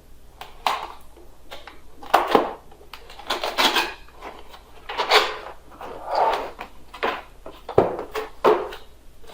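Cardboard box and packaging being opened and handled: irregular rustles, scrapes and a few sharp knocks.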